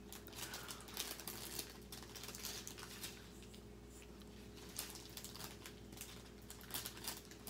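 Faint crinkling and light irregular clicking of a strip of small plastic zip bags of diamond painting drills being handled and unfolded.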